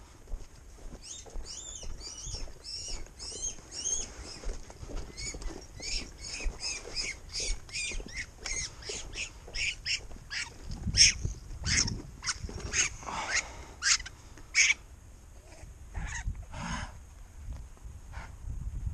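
A bird calling in a long run of short, high chirps, about three a second, that fades out near the end. Some low thumps come about two thirds of the way through.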